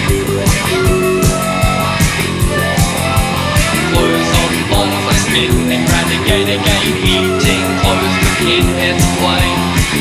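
Rock music from a guitar, bass and drums band, playing a passage without words over a steady drum beat.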